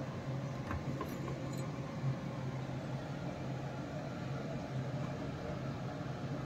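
A steady low mechanical hum, with a few faint clicks in the first second or two.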